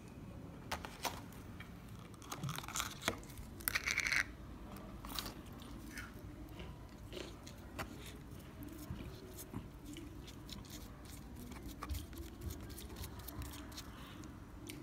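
Crisp crunching and crackling from fried potato fries being handled in a cardboard box and dipped into a sauce cup. A cluster of louder crackles comes about three to four seconds in, then scattered sharp clicks.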